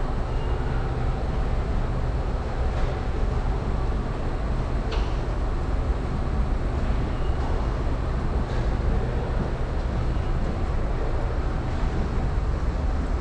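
Steady low rumble of vehicles, with a few faint clicks.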